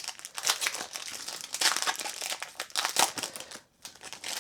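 Crinkling of a foil trading-card pack wrapper being handled and opened: a dense run of crackles that stops about three and a half seconds in, with one short tap near the end.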